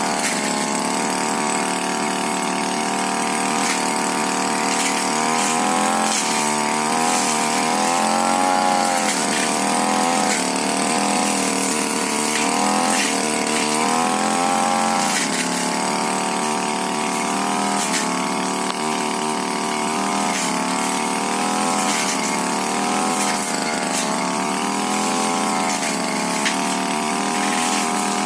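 Tiger TG328 brush cutter engine running hard while cutting through brush. Its pitch keeps rising and falling every second or two as the engine revs and bogs under the load of the cutting head.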